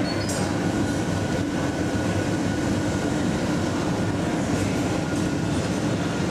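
Steady roar of a glassblowing studio's glory hole burner and blowers, running without a break.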